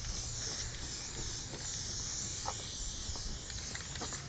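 Aerosol spray paint can hissing unevenly, over a low background rumble.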